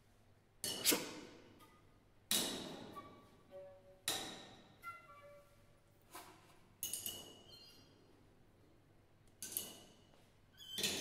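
Sparse free-improvised percussion: about half a dozen sharp strikes on metal and glass-like objects, spaced a second or two apart, each ringing out and fading, with short faint pitched notes in between.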